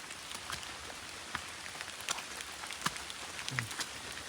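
Steady rain falling, with scattered sharper drips striking close by.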